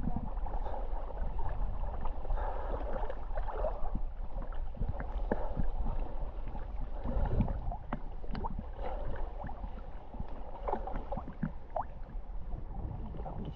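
Water lapping and splashing close by as the small boat edges along a rocky shore, a steady wash with many small irregular splashes over a low steady rumble.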